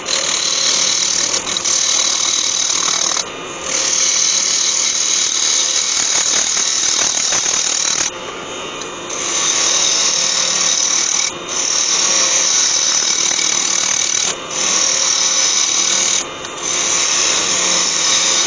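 Gouge cutting the outside wall of a spalted beech bowl spinning on a wood lathe, a steady hiss of shavings coming off in a clean-up cut. The cut runs in several long passes with brief breaks between them.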